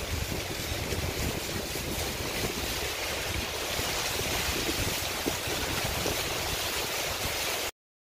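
Heavy rain falling steadily, with gusty wind rumbling on the microphone; it cuts off suddenly near the end.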